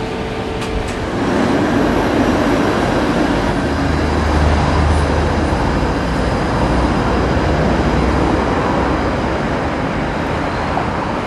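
A Bombardier Flexity Outlook streetcar running toward the listener on its street track, amid steady road traffic noise with a deep rumble. For about the first second there is the steady hum inside a streetcar's cabin.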